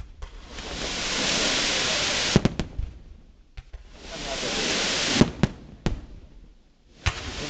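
Fireworks display: two long swells of loud hiss, each about two seconds, each ending in a few sharp bangs. A quieter lull near the end gives way to more bangs.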